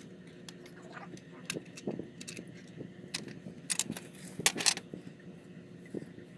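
Scattered sharp clicks and clinks of small hard parts being handled, with a quick cluster of them about four and a half seconds in, over a steady low hum.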